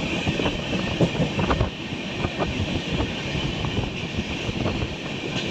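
Moving train: a steady rumble of running wheels with irregular rattling clicks, and wind on the microphone.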